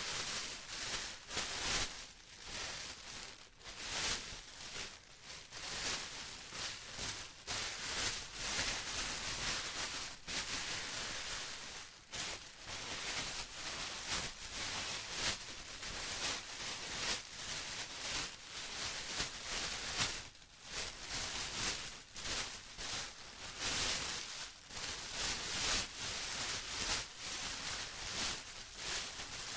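Plastic being rustled and crinkled by hand without a break, in irregular swells of crackly, hissing noise.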